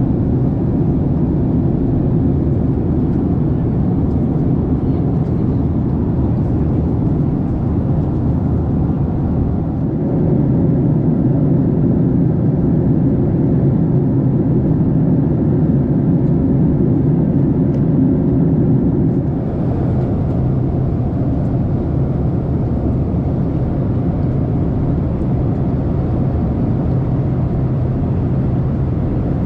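Steady engine and airflow drone inside the economy cabin of a Boeing 767-300ER at cruise, deep and even. Its tone shifts slightly twice, about ten seconds in and again near twenty seconds.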